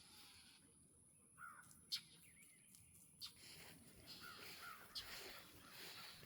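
Faint bird calls, a few short calls that bend in pitch, with a few sharp clicks between them.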